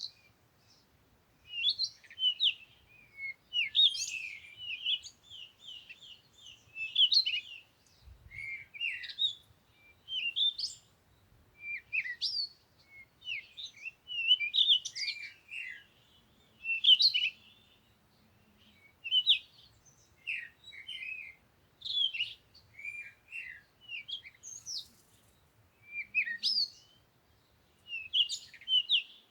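Songbirds singing: short phrases of quick chirps and whistled notes that slide up and down, one phrase every second or two with brief gaps between.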